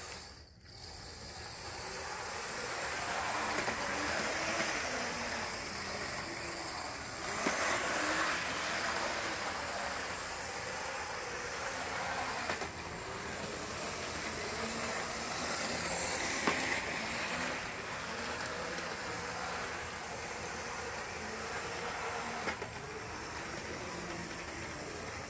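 GI Joe toy electric train running around its track: a steady whirring motor with wheel rattle, getting louder a few times as it passes close by.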